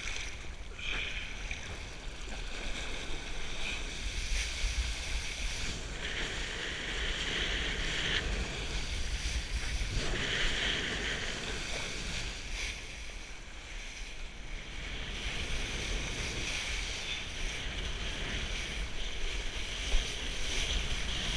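Wind buffeting a kitesurfer's body-mounted action camera as the board skims over choppy water: a steady low rumble under a hiss of spray and chop that swells now and then.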